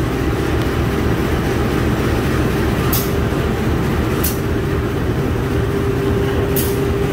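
Retired Tokyo Metro 5000-series electric train cars rolling slowly past while hauled by a CC 201 diesel locomotive, a steady rumble of wheels on track. Short sharp hisses come three times, and a steady whine sets in about halfway through.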